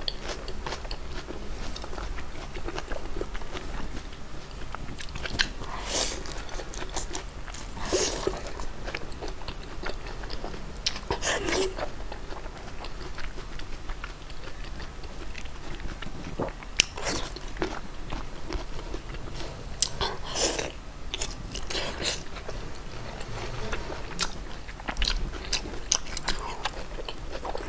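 A person biting and chewing close to a clip-on microphone, with a crisp crunch every few seconds. The food is lettuce-wrapped braised pork belly and green Laba pickled garlic.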